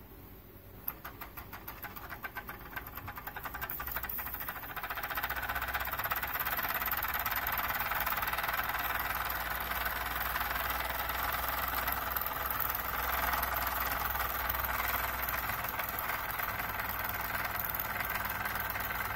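Jean Comby toy steam engine's single oscillating cylinder getting going about a second in: separate exhaust puffs that quicken over the next few seconds into a fast, steady run that holds to the end.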